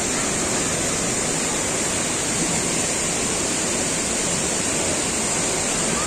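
Rushing water of a rocky mountain stream below a waterfall: a steady, even rush with no breaks.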